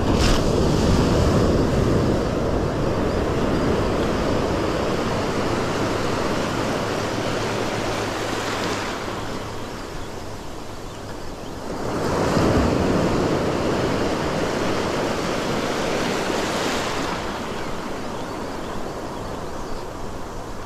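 Shallow surf washing in and breaking around the angler's legs. It swells loudest twice, right at the start and again about twelve seconds in.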